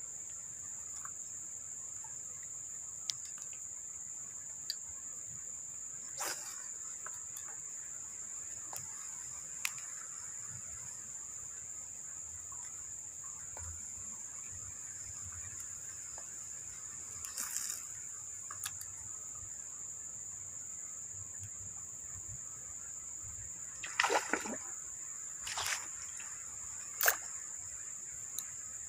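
Small splashes and faint ticks at the water's edge while fishing with a spinning rod, with a cluster of splashes near the end, over a steady high-pitched whine.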